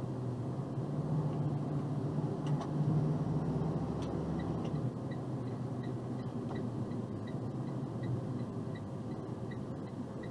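Box truck engine and road noise heard inside the cab, a steady low hum that swells a little early on. From about four seconds in, the indicator ticks lightly and evenly, about three times a second.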